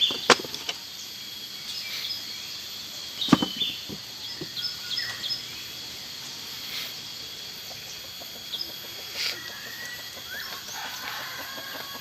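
Village morning birdsong: many short chirps and calls, with chickens clucking, over a steady high tone. Two sharp knocks stand out, one just after the start and one about three seconds in.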